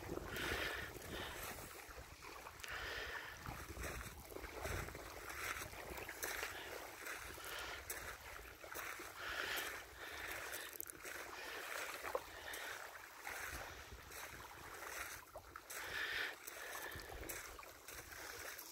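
Small lake ripples lapping at a shallow shore, swelling softly every second or two, with wind buffeting the microphone.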